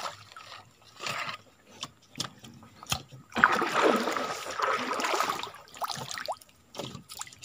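Swamp water splashing and sloshing as a wire-mesh fish trap is pushed into place with a wooden pole from a small boat, with a few sharp knocks among it. The splashing is loudest from about halfway through for two seconds.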